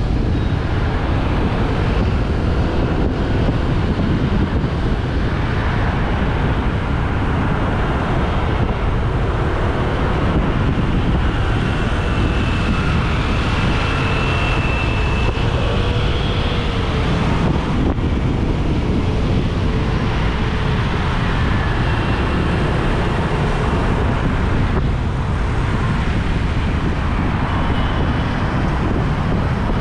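Wind rumbling on the microphone of a camera riding in the open through city traffic, with the steady noise of surrounding cars and motorbikes. Faint engine whines rise and fall in the middle stretch.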